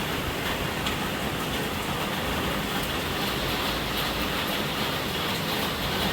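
Steady, calm rainfall: an even hiss of rain with a few faint drop ticks.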